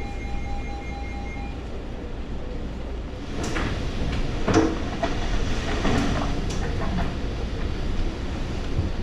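Storm wind roaring steadily with a low, train-like rumble. It grows louder about three seconds in, with several sharp cracks or knocks over the next few seconds. A faint pulsing beep stops about a second and a half in.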